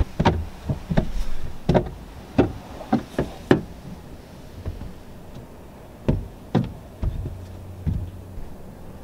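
Irregular knocks and clicks: eight in quick succession in the first three and a half seconds, then a few more later. They sit over a low steady hum.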